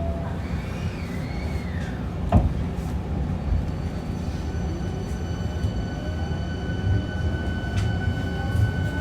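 Hankyu 1300 series train starting off, its Toyo IGBT VVVF inverter and traction motors whining, with lines in the whine climbing in pitch as it picks up speed, over the rumble of the wheels. A sharp knock about two and a half seconds in.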